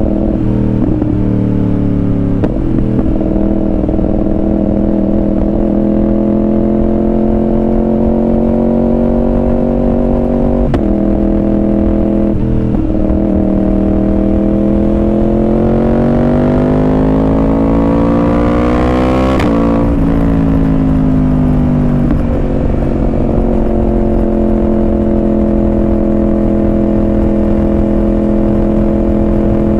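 Yamaha R1 inline-four sportbike with a Yoshimura exhaust, ridden on the open road: a few quick gear changes early on, then a long pull with the engine pitch rising for about six seconds, cut off suddenly about two-thirds of the way through, easing down and settling to a steady cruise.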